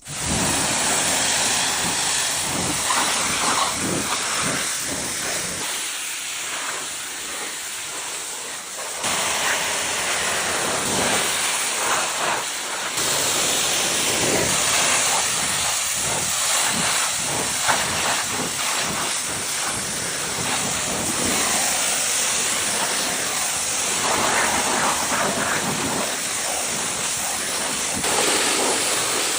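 A loud, steady hiss from a high-pressure jet. It changes level abruptly about 9 and 13 seconds in.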